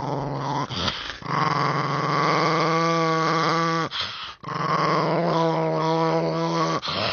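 Small dog growling in long, drawn-out grumbles, three stretches broken by short pauses, the growl wavering in pitch partway through each.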